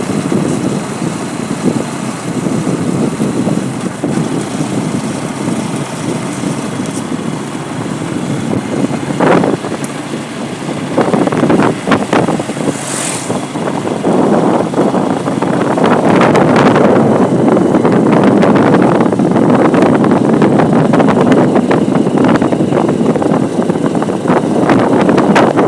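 A motor vehicle running steadily, growing louder from about halfway through.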